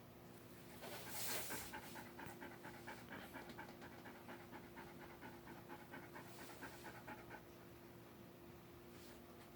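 A dog panting fast and shallow, several breaths a second, starting about a second in with a louder breathy rush and fading out near the seven-second mark. This is the stress panting of a dog frightened by thunder.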